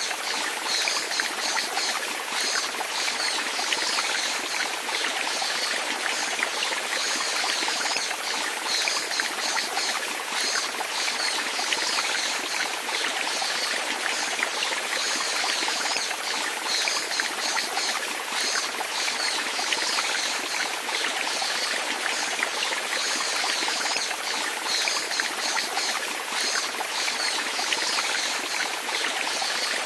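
Steady running water, an even flowing sound that keeps on without pause or change.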